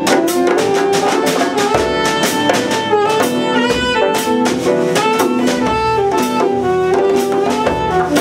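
Small live jazz ensemble playing: a saxophone carries the melody in held notes over steady djembe hand-drum strokes, with upright bass underneath.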